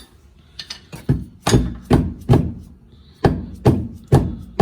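Repeated blows striking a steel frame connector to knock it back into place under a Fox-body Mustang, about two hits a second with a short pause midway, each hit ringing briefly.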